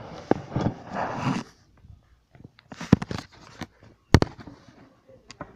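Handling noise as a phone is moved against a glass container: rustling, then several sharp knocks and clicks, the loudest about four seconds in.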